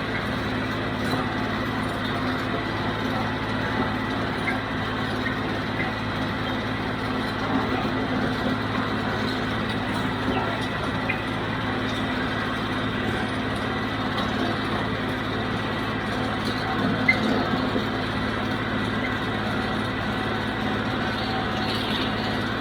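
John Deere 5055D tractor's three-cylinder diesel engine running steadily while baling hay with a JD 348 square baler, with a thin steady high whine over the engine drone.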